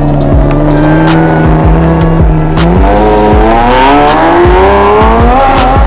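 Lamborghini Murciélago V12 pulling away: the engine note holds steady, then rises steadily from about halfway as the car accelerates. Background music with a steady beat runs underneath.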